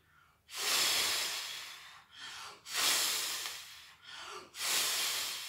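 A woman blowing hard through her mouth to imitate the wind: three long blows, each starting loud and fading away, with short breaths between them.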